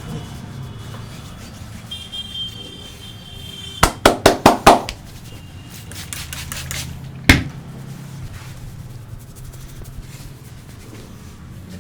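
Sharp hand slaps of a barber's head massage: a quick run of about five strikes about four seconds in, and one more a few seconds later.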